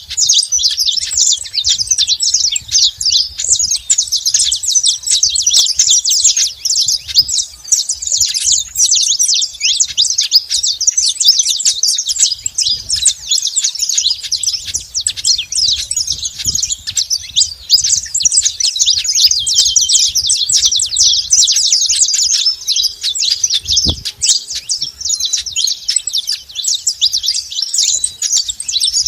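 Saffron finches (canário-da-terra) chirping and singing in a dense, continuous stream of high chirps and trills.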